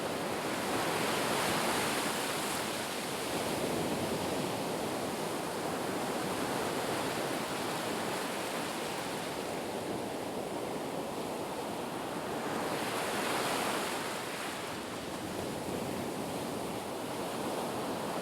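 Ocean surf: a steady rush of waves breaking and washing in, swelling louder twice.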